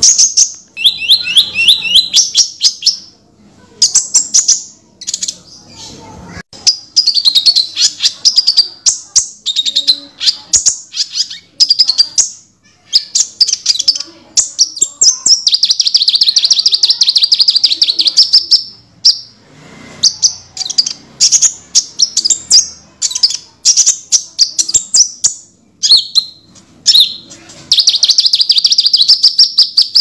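Crimson sunbird (burung konin) singing: high, rapid chirps and fast trills in quick bursts with short gaps, some runs lasting several seconds.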